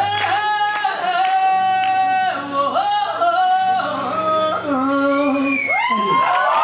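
A singer holding long, high sung notes without words, stepping down in pitch a few times: one note is drawn out so long that it seems not to end.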